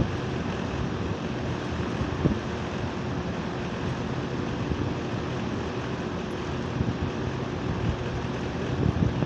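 Split-type air conditioner unit running: a steady mechanical hum with several steady tones under a wash of fan air noise, with a few faint clicks.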